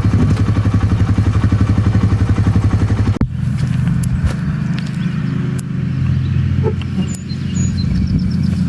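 Small engine running, with a rapid even throb for about three seconds. It then changes abruptly to a steadier, lower hum with a few faint clicks.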